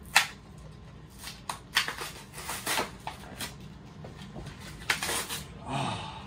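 Cardboard card and plastic blister of a carded action figure being torn open by hand: a string of short crackling rips and crinkles, the loudest about two and five seconds in. A brief low vocal sound comes near the end.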